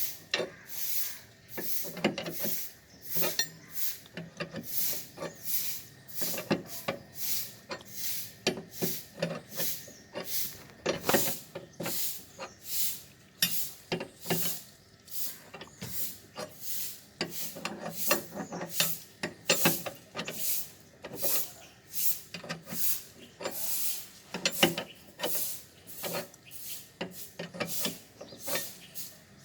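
Car scissor jack being cranked up by its handle, the screw turning under the car's weight with rhythmic rasping strokes, roughly two a second, as the jack lifts the wheel.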